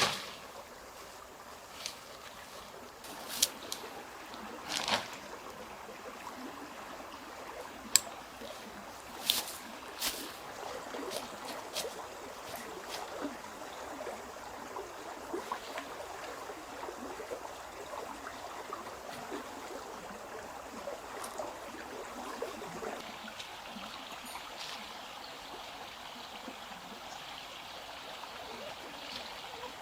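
Water trickling steadily, with a handful of sharp clicks during the first third.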